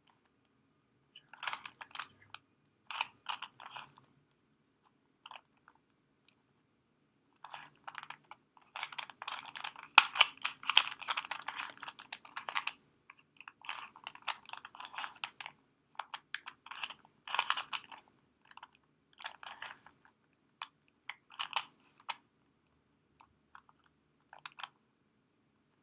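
A one-dollar plastic Rubik's cube being twisted by hand: bursts of rattling, clicking face turns with pauses between them. The longest, densest run of turns comes about ten seconds in.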